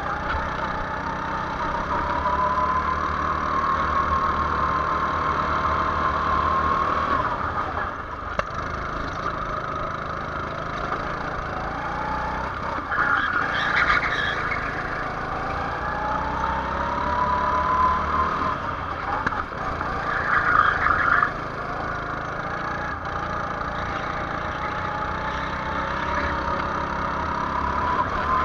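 Go-kart engine heard on board, its pitch climbing steadily as the kart accelerates and falling sharply when the throttle is lifted for a corner, then climbing again. Twice a short burst of harsher noise rises over the engine, about halfway through and about two-thirds of the way through.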